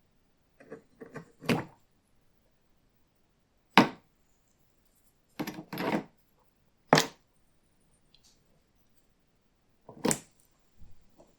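A string of separate sharp knocks and clicks, a few at a time with pauses between them, typical of metal tool parts being handled and set down on a workbench. The loudest are single sharp knocks about four and seven seconds in.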